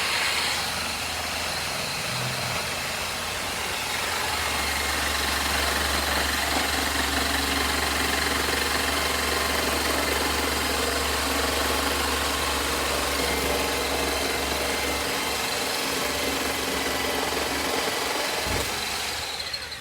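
Hychika jigsaw cutting, its motor and reciprocating blade running steadily at speed setting 4, then cutting off at the end.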